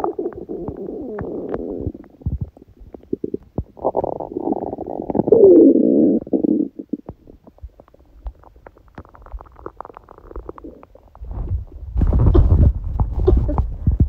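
Empty stomach growling from hunger: long gurgles that slide up and down in pitch for the first several seconds, a stretch of small scattered pops and clicks, then a deeper, louder rumble near the end.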